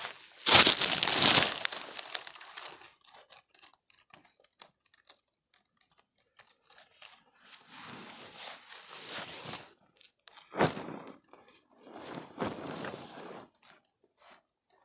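Rustling and crunching of something being handled, in several bursts, the loudest near the start, with scattered clicks and one sharp click about ten and a half seconds in.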